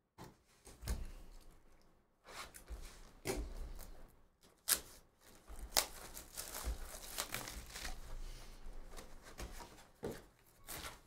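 Plastic shrink wrap being torn and crinkled off a cardboard trading-card hobby box in irregular rips and rustles, then the box's cardboard lid pulled open near the end.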